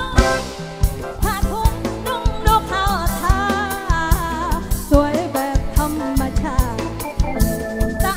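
A woman singing live into a microphone with vibrato, backed by a band with a steady drum-kit beat, all amplified through a PA system.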